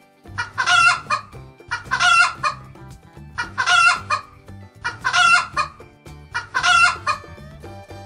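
Chicken calling five times, each call under a second long, evenly spaced about every second and a half.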